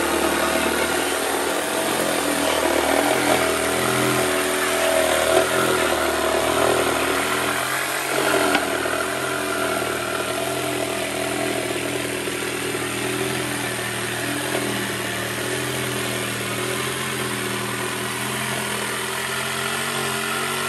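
Electric jigsaw running continuously as it cuts a curve through a thick wooden board, its motor pitch wavering up and down as the blade loads and eases.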